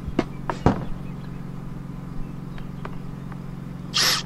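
A few light clicks and knocks as screws, washers and the plastic rifle case are handled, then a cordless drill spins up briefly near the end.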